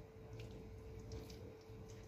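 Faint soft taps and squelches of a plastic spoon scooping blended tuna paste from a plastic bowl and dropping it into a wok, over a faint steady hum.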